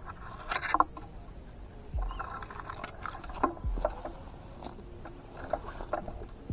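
Sparse deep bass hits that drop in pitch, about every two seconds, with scattered sharp clicks and snaps between them: a stripped-down passage of a rap backing track.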